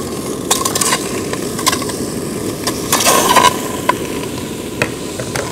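Pieces of conch meat dropped one after another into an aluminium pot, landing with several short knocks, over a steady low rumble.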